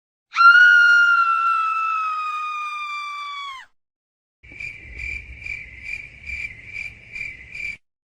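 Two sound effects from a pack: first a held whistle-like tone that slides slowly down in pitch for about three seconds and stops, then, after a short gap, crickets chirping in even pulses about twice a second, the stock 'awkward silence' cricket effect.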